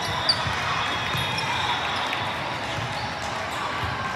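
Indoor volleyball court with the steady hubbub of a busy gym hall. About a third of a second in, a ball thumps on the hardwood floor together with a short sneaker squeak.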